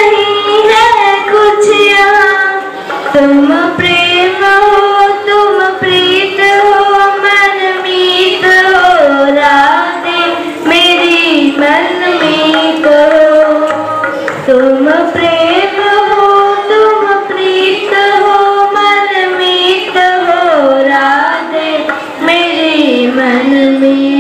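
A group of girls singing a melody together in unison, with harmonium accompaniment. The song runs on with only brief breaths between phrases.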